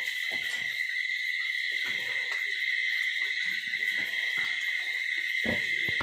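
Steady, high chirring of crickets through the night, with soft, irregular grunts from a sow and her newborn piglets underneath.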